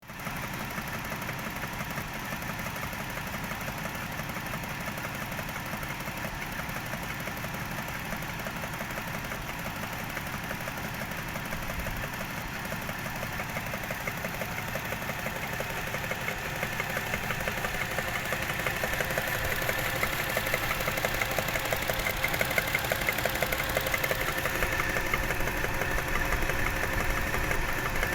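Toyota 1JZ-GE inline-six engine running with a steady rhythmic tapping knock, growing louder about two-thirds of the way through. Others have suggested the knock may come from loose camshaft fastening.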